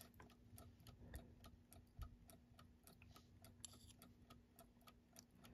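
Faint, quick, even ticking of a Westclox Big Ben Style 7 alarm clock movement running uncased, about five ticks a second.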